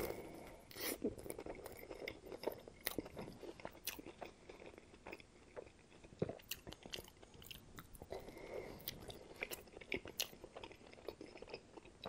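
Close-miked chewing and biting of a soup-dipped tomato sandwich: moist mouth sounds with soft crunches of toasted bread and scattered sharp wet clicks at an irregular pace.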